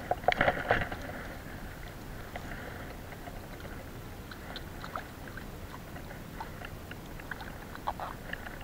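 A quick run of sharp knocks and clatter in the first second, then a hand working in a bucket of wet fishing bait: soft squelches and scattered small clicks over a steady wash of sea and wind noise.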